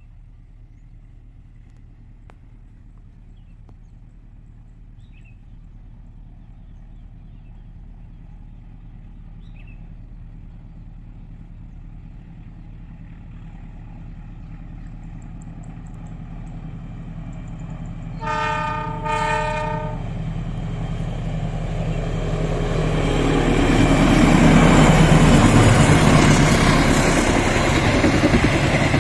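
A train approaches with a slowly rising rumble. About two-thirds of the way in, its diesel locomotive sounds two short horn blasts back to back, with several notes at once. The train then passes close by, its engine and wheels on the rails loudest near the end.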